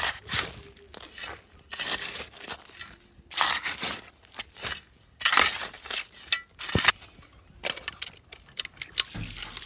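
Crunching and rustling of dry soil and a paper sack being handled at a pit of stored turnips, then a quick run of sharp clicks and knocks as the steel bowl of turnips is moved, with one dull thump just before.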